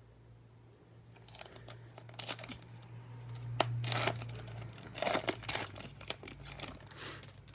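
Foil trading-card pack wrapper being torn open and crinkled, in irregular rustling bursts that build from about a second in and are loudest around the middle.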